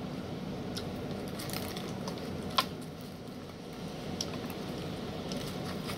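A person chewing a mouthful of tortilla wrap with her mouth closed: scattered soft wet mouth clicks, with one sharp click about two and a half seconds in.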